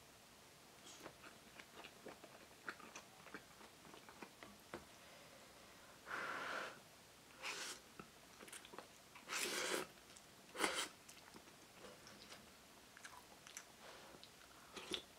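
Close-up eating sounds: chewing with small clicks, broken about six to eleven seconds in by a few louder, noisy slurps as udon noodles are sucked in.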